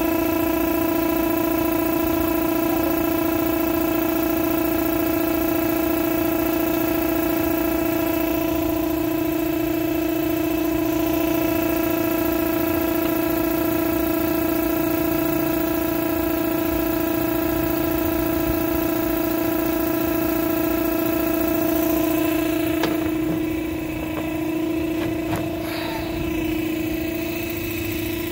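Electric air pump running with a steady, even hum, blowing air through a hose into a bed of sand to fluidize it. A few faint knocks near the end.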